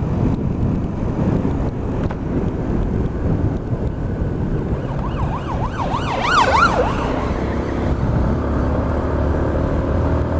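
Yamaha MT-125 single-cylinder motorcycle engine running at road speed with wind noise. About halfway through, an emergency-vehicle siren yelps in fast rising-and-falling sweeps for about two seconds, from a police car with blue lights on the road ahead.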